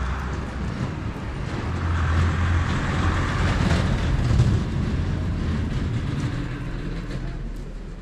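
A motor vehicle's engine running as it passes on the street, growing louder to a peak about four seconds in and then fading away.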